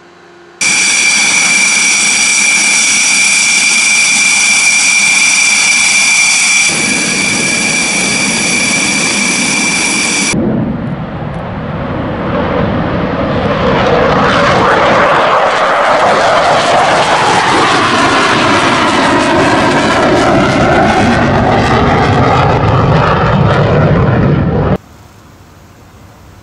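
Dassault Rafale fighter's twin Snecma M88 turbofan engines running with a loud, steady high whine. About ten seconds in, this gives way to the jet noise of a Rafale taking off and passing, its pitch sweeping up and down as it goes by; the sound stops abruptly near the end.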